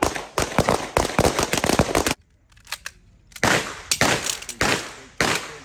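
Rapid gunfire from 9mm submachine guns and pistols on a range: a quick string of shots for about two seconds, a pause of about a second, then more shots with an echoing tail.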